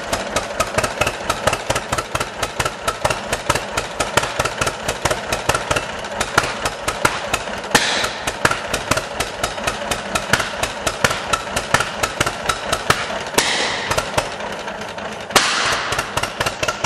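1949 John Deere BW's two-cylinder engine idling with a steady putt-putt of firing pulses, still running on the fuel it is sucking after the fuel has been shut off.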